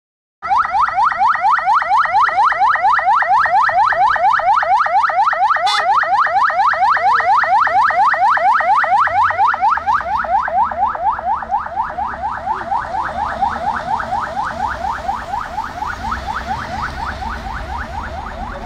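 Police vehicle electronic siren in fast yelp mode: a rapidly repeating rising wail, several sweeps a second. It starts suddenly about half a second in and grows fainter through the second half.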